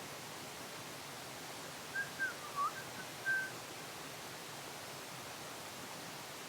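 A short whistled phrase of about five brief notes: one dips and rises, and the last is held a little longer. It plays over a steady hiss.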